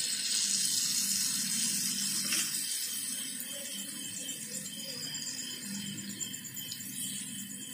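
Taler bora (palm-fruit batter fritters) sizzling in deep oil in a kadai, a steady crackling hiss from freshly dropped batter balls that slowly quietens.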